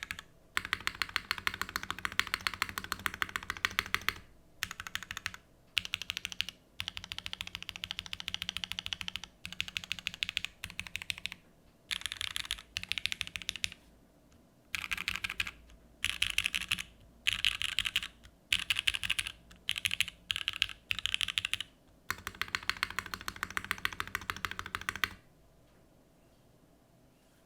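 Typing on an Emery65 gasket-mounted 65% mechanical keyboard with lubed, filmed Gateron X linear switches on an aluminium plate and KeyKobo WoB keycaps. It comes in runs of rapid keystrokes a few seconds long, broken by short pauses and shorter groups of presses, and stops about 25 seconds in.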